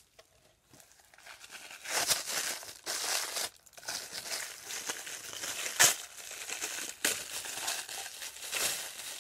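Packing wrap crinkling and rustling as it is pulled off an item by hand, in irregular bursts starting about two seconds in, with one sharp snap near the middle.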